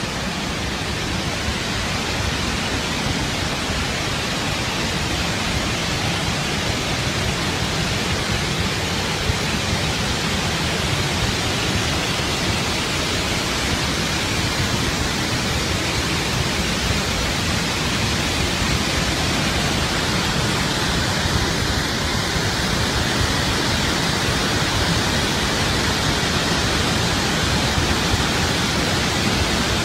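Massive torrent of floodwater released from a dam's emergency spillway, rushing and crashing down in a steady, unbroken roar of water.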